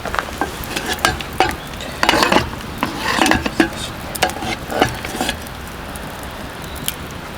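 A metal utensil stirring and scraping in a pan, with quick clicks against the metal, busy for about five seconds and then settling.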